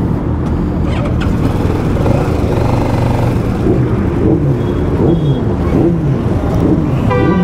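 Motorcycle engines running in traffic, revving up and down repeatedly from about halfway through as the bikes pull away. A short horn blast sounds near the end.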